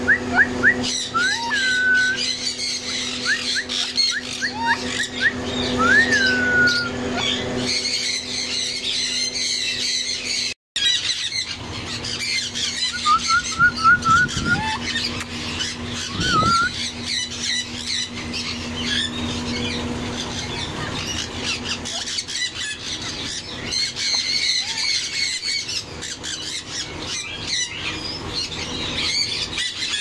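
Caged birds chirping and squawking throughout, with a quick run of short rising whistles at the start and again about halfway, and a few single whistled glides. A steady low hum sits underneath for much of it.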